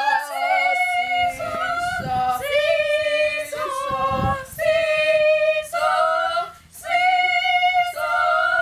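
Three girls singing unaccompanied, holding long notes one after another with short breaths between, including a brief pause near seven seconds. A low thud comes about four seconds in.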